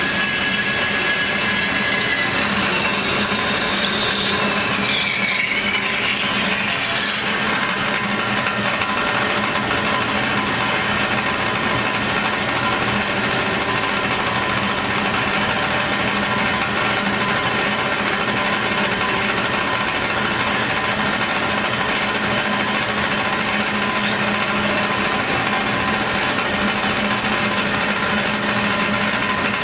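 Hyd-Mech S-20A Series II horizontal band saw running, its blade feeding down and cutting through a steel tube under flowing coolant. A steady machine hum and hiss; the tone shifts a few seconds in, then holds steady.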